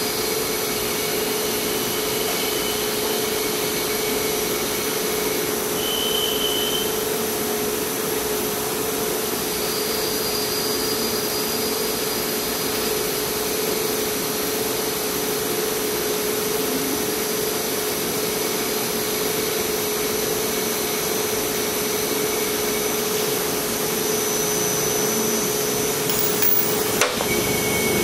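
Steady hum and whir of running shop machinery, unchanging throughout, with a single sharp click about a second before the end.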